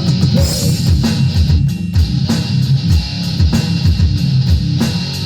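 Rock music with guitar and a drum kit, a song idea meant for the chorus.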